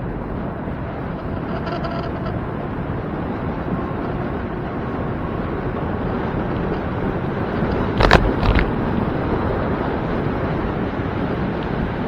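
Steady rushing wind and road noise on the microphone of a moving bicycle, with two sharp knocks about eight seconds in.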